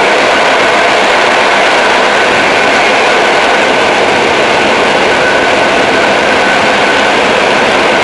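ČD class 460 electric multiple unit running at speed, heard from on board: a loud, steady rush of running noise with a faint high whine held throughout.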